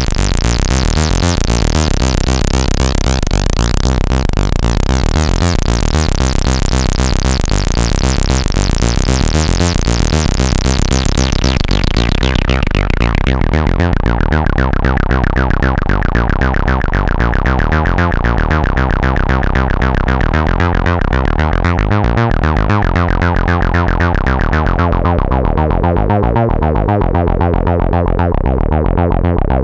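Behringer Odyssey analog synthesizer playing a dense, buzzy sustained sound. The filter closes about twelve seconds in and again near the end, taking off the bright top and leaving a darker tone.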